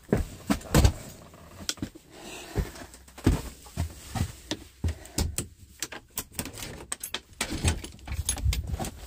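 Irregular clicks, knocks and rustles of a handheld phone brushing and bumping against a hooded nylon jacket while walking, with a few low thumps.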